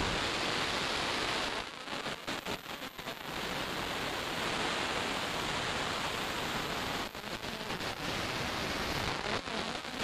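Water rushing over a rocky cascade into a stream, a steady even rush that dips briefly about two seconds in and again around seven seconds.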